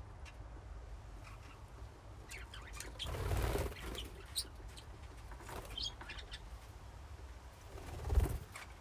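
Budgies in a colony cage chirping in short, scattered calls, with two bursts of wing flapping: one about three seconds in and a shorter, louder one near the end.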